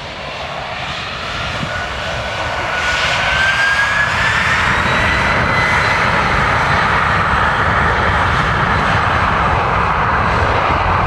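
Aircraft engines growing louder over the first few seconds, with a whine rising in pitch, then a steady loud engine noise.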